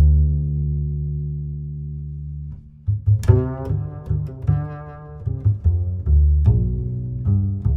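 Background music: a long held low note that slowly fades, then a melody of short notes entering about three seconds in.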